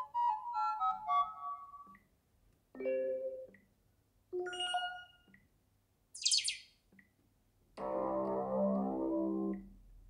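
Sony Xperia 1 VI notification sounds previewed one after another through the phone's speaker: five short electronic tones with gaps between. The first is a quick run of notes, one about six seconds in is a brief high chirp, and the last is a longer chord-like tone.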